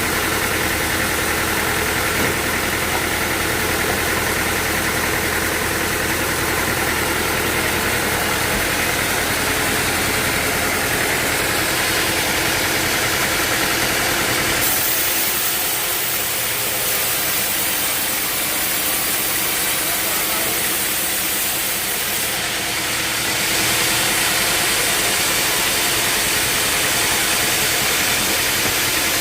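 Sawmill machinery running steadily. About halfway through, its sound changes: less low rumble and more high hiss.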